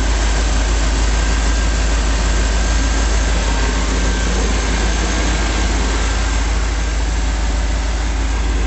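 Chevrolet 350 cubic-inch (5.7 L) small-block V8 idling steadily.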